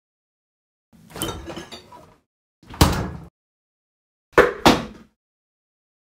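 A refrigerator door opens with a short rattle of its contents and then shuts with a knock, followed by two quick knocks of items being set down on a counter.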